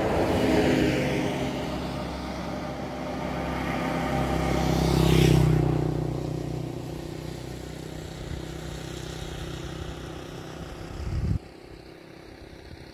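Motor vehicles passing on the road: engine and tyre noise swells to its loudest about five seconds in and fades away, and the sound drops off abruptly near the end.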